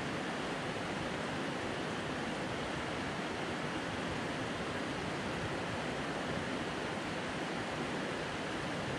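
River flowing: a steady rushing of water.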